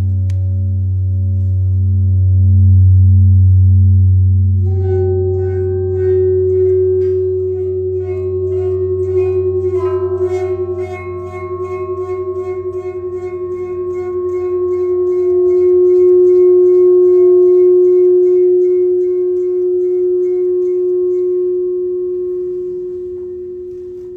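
Large sand-strewn metal plate rubbed with a rubber-ball friction mallet, singing with sustained tones. A low throbbing hum gives way about five seconds in to a higher steady ringing tone, and a still higher tone joins about ten seconds in.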